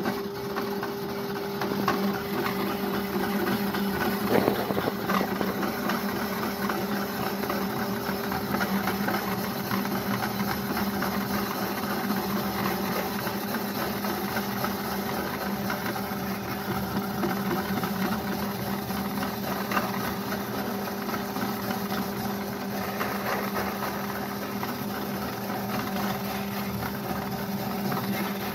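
Small benchtop metal lathe running steadily with a motor hum, spinning a rotary grater drum in its chuck while a carrot is pressed onto the cutting blades and grated with a continuous rasp.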